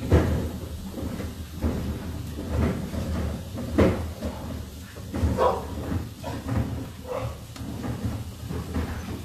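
Vegetable pieces being laid onto a hot barbecue grill: a series of irregular light knocks and clunks, about seven in all, over a steady faint sizzling hiss.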